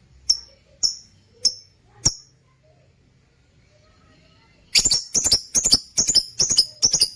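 Lutino opaline lovebirds calling: four sharp, high chirps about half a second apart, then after a pause a rapid run of about eight harsh, shrill calls near the end.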